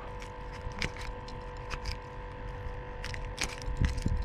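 Steel multi-tool pliers clicking and scraping as they work at a hook swallowed deep in a small fish's mouth, with scattered small metallic clicks and a couple of low handling bumps near the end.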